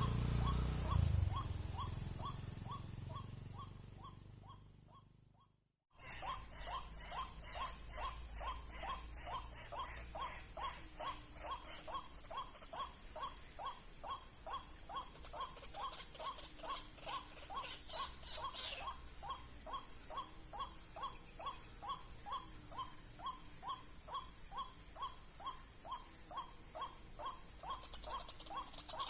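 Ditch-side ambience: a steady high-pitched insect buzz with a short call repeating about three times a second. For the first few seconds a low rumble fades out, then the sound cuts to silence briefly before the buzz and calls begin.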